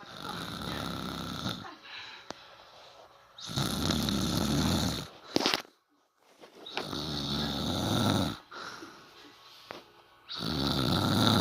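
A woman snoring loudly: four long, rattling snores about every three and a half seconds, each lasting about a second and a half. A short sharp noise comes between the second and third.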